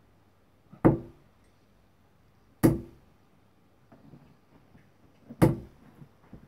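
Three steel-tip darts striking a Winmau bristle dartboard one after another: three sharp thuds, the second and third about two and three seconds after the one before.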